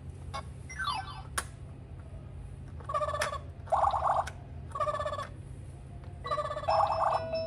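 Electronic sound effects and short tune notes from a Winfun Animal Fun Book baby toy, played through its small speaker as its buttons are pressed. A falling electronic glide comes first, then a sharp plastic click about a second and a half in, then several short pitched bursts of notes.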